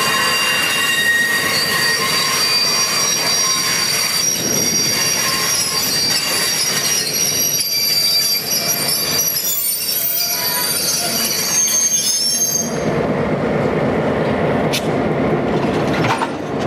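Steel wheels of a slow-moving passenger train, a diesel locomotive and stainless-steel coaches, squealing against the rails on a curve, several high squealing tones at once. About thirteen seconds in the squeal stops, and a lower rumble of the cars rolling over the track takes over, with a sharp click near the end.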